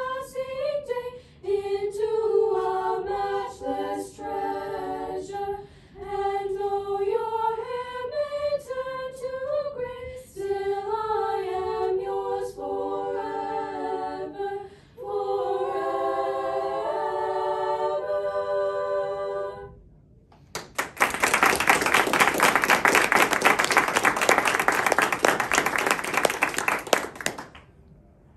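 A six-voice girls' a cappella ensemble singing in close harmony, ending on a held chord about two-thirds of the way through. After a brief pause, the audience applauds for several seconds, and the applause dies away near the end.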